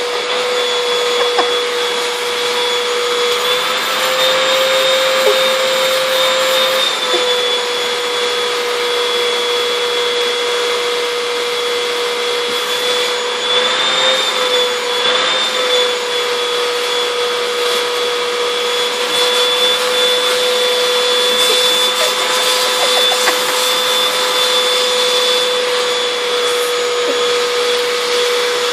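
Vacuum cleaner running through its hose and wand: a steady motor whine over rushing air, rising briefly in pitch a few seconds in and again around the middle.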